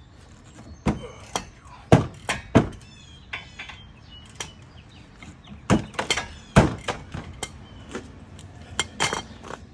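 Hand tools working loose the caliper bracket bolts on a front brake, heard as sharp knocks and clunks. They come in three clusters of two to four strikes.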